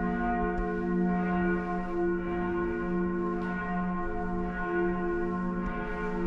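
Church bells ringing: several bells sounding together, their tones overlapping into a continuous ring that swells and fades about once a second as the bells keep striking.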